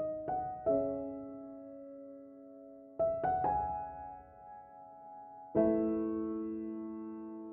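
Slow, gentle piano background music: single notes and a chord struck a few seconds apart, each left to ring and fade.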